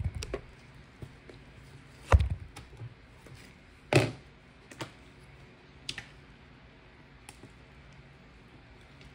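Irregular short taps and knocks, the loudest about two and four seconds in, fewer and fainter after about six seconds.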